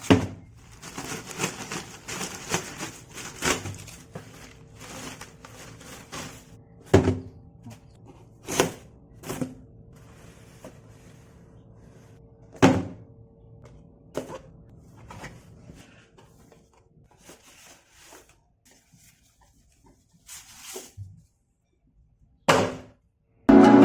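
Box and packaging handled while a portable speaker is unboxed: scattered knocks and thunks, about seven sharp ones, with rustling between them and a faint steady hum through the first two-thirds.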